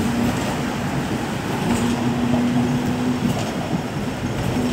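Hong Kong double-decker tram running along its street track: a continuous rumble and rattle of the car in motion, with a steady low hum for about a second and a half midway.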